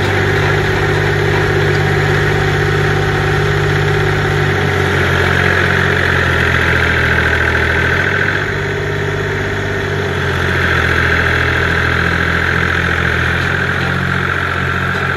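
Kubota L2250 compact tractor's diesel engine running steadily close by, its note shifting a few times and dipping slightly a little past the middle.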